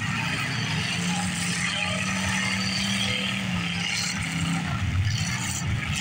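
Demolition derby cars' engines running and revving together, one engine held at a steady pitch for about three seconds from about a second in.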